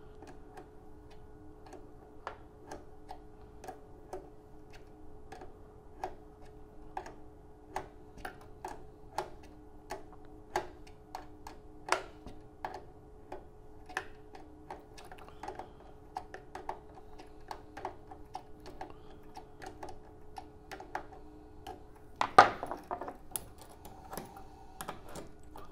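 Small, irregular metallic clicks and taps as coaxial cable connectors are threaded on and tightened with a small wrench, over a steady hum. A louder clatter comes about 22 seconds in.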